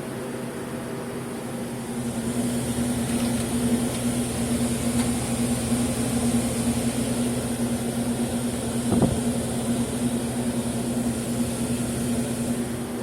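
Traulsen cooler/freezer refrigeration unit running with a steady electric hum; the noise swells about two seconds in and eases near the end, with a single sharp click about nine seconds in.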